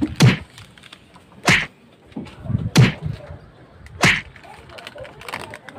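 Four sharp whacks, evenly spaced about a second and a quarter apart.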